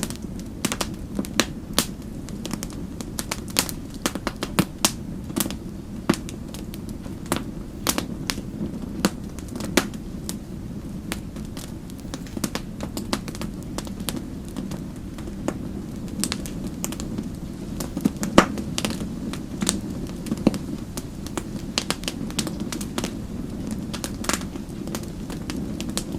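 Wood fire crackling in a fireplace: a steady low rumble with irregular sharp pops and snaps, several a second.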